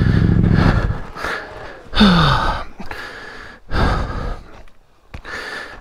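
A motorcycle engine running, cutting off about a second in, followed by a rider's heavy gasping breaths about once a second, with a short falling grunt among them, as he recovers from the exertion of a crash.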